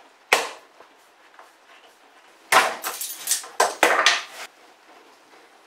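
Tools and wooden pieces knocked and set down on a wooden workbench during a glue-up: one sharp knock, then a quick clatter of several knocks about two and a half seconds in.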